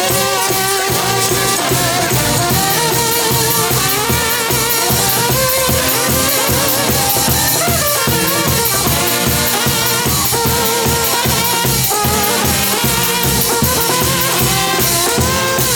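Live brass band playing an upbeat instrumental: trumpets and trombones carrying a melody over a driving drum beat.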